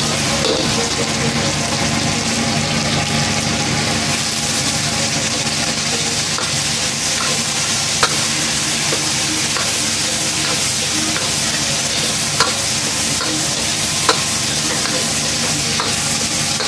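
Food sizzling steadily as it is stir-fried in an iron wok over a gas burner, a metal ladle stirring and scraping it, with a few sharp clinks of the ladle against the wok about halfway through and near the end.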